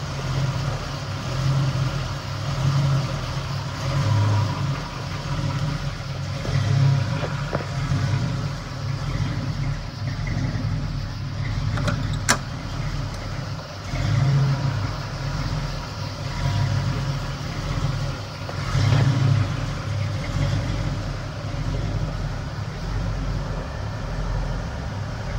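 A 350 V8 with Ram Jet TPI fuel injection idling steadily, with a low uneven rumble and a single sharp click about twelve seconds in.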